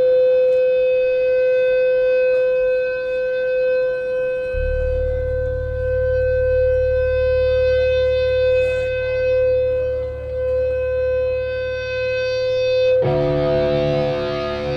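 Sustained electric guitar feedback through the band's amplifiers: one steady high howl held throughout, with a low bass drone joining about four seconds in and more notes coming in near the end.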